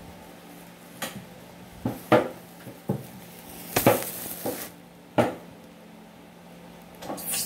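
Household clatter: a string of short knocks and clinks, about one a second, of dishes and utensils being handled, over a steady low hum.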